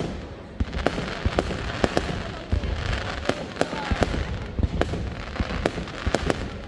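Fireworks display: an irregular run of sharp bangs, a few a second, over continuous crackling and a low rumble.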